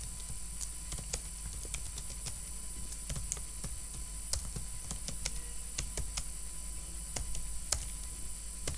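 Typing on a computer keyboard: irregular key clicks, a few a second, over a steady low hum and high hiss.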